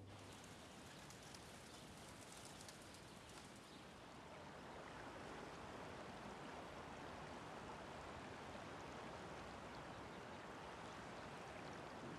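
Faint outdoor lakeside ambience: a soft, even hiss of wind and water.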